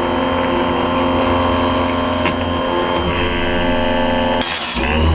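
Chicago Electric (Harbor Freight) electric chainsaw chain sharpener running, its motor and grinding wheel spinning with a steady pitched hum. Near the end comes a brief high-pitched grind as the wheel is lowered onto a cutter tooth to take a quick touch off its edge.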